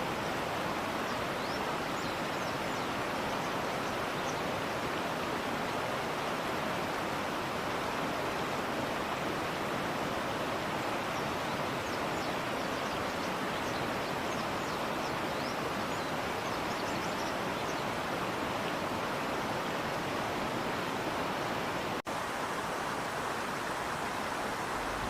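Steady rushing of river water, with a few faint high bird chirps now and then.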